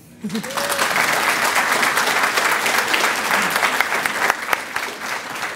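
Audience applauding: clapping that rises quickly to a steady, dense round and eases slightly near the end.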